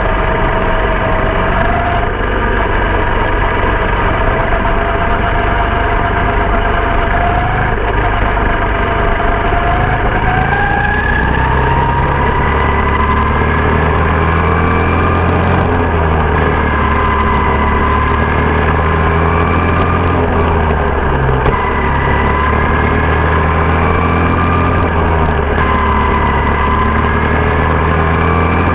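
Small open-wheel dirt-oval race car's engine running at speed, heard from on board. The pitch climbs about ten seconds in as the engine revs up, then rises and falls a little.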